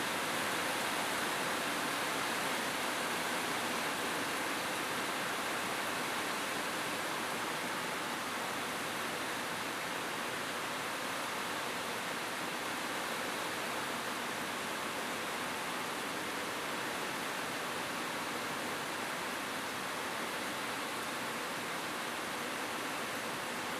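Rain falling steadily on a roof: an even, unbroken hiss with no single drops, thunder or other sounds standing out.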